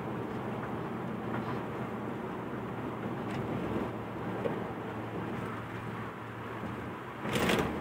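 Steady road and engine noise heard from inside a moving car's cabin on a freeway, a low drone under a constant hiss, with a brief louder burst of noise near the end.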